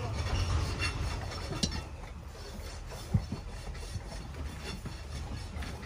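A farrier working on a horse's hoof with hand tools: rubbing and scraping for the first two seconds, then quieter, with a few sharp clicks.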